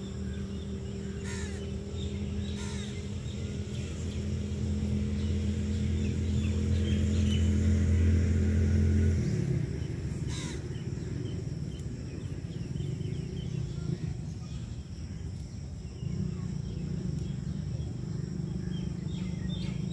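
A steady low engine-like hum growing louder for several seconds, then dropping in pitch and cutting off about nine seconds in, over faint outdoor background noise; a few sharp clicks, and a fainter hum returns near the end.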